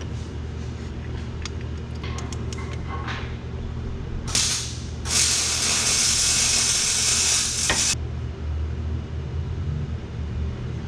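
Small metallic clicks of a bolt and lock washer being fitted and a wrench working on a go-kart's exhaust mount, then a loud, even hiss-like rasp for about three seconds that stops abruptly.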